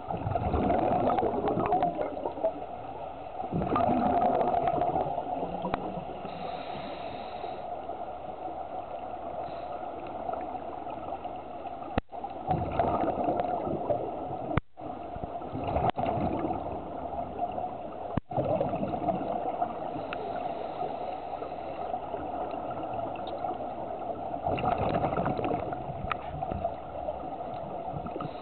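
Scuba regulator exhalations underwater: rushing, gurgling bubble bursts lasting a second or two, coming every few seconds over a steady underwater background.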